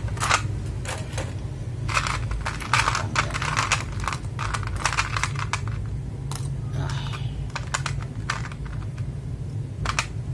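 Mechanical keyboard switches clicking and clattering in irregular bursts, as keys are pressed and loose switches are handled.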